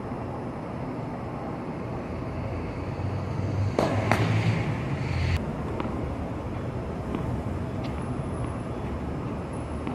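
Tennis serve: two sharp knocks a fraction of a second apart about four seconds in, from racket and ball, with a short hiss that cuts off suddenly. A steady low traffic hum runs underneath.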